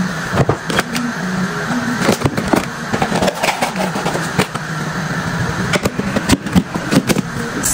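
Spice jars being set back into a kitchen drawer: a run of knocks and clatters over a steady hum.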